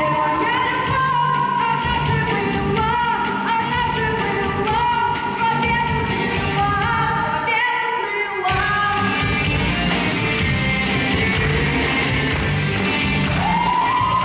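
Folk-rock song with a woman singing over a rock band. The bass and drums drop out for a moment about eight seconds in, then come back.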